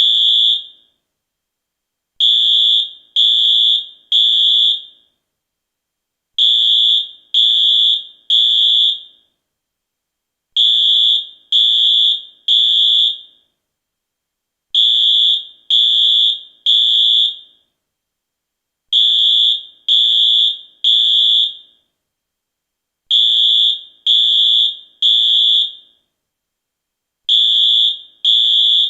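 US fire alarm sounding in the temporal-three pattern: three high-pitched beeps of about half a second each, then a pause of about a second and a half, the cycle repeating about every four seconds. This three-beep cycle is the standard evacuation signal.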